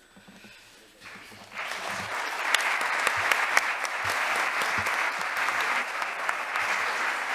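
Audience applauding: the clapping starts thinly and swells to full, steady applause about a second and a half in.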